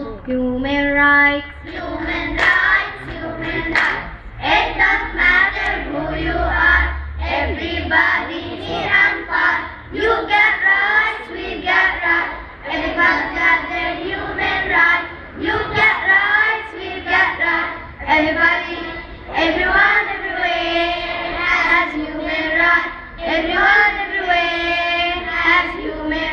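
A group of young girls singing together into a microphone, with a few long held notes in the second half.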